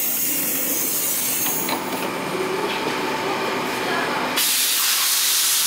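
Stockholm metro train standing at a platform, compressed air hissing from its pneumatic doors and brakes; about four seconds in a loud burst of air hiss starts and then cuts off suddenly.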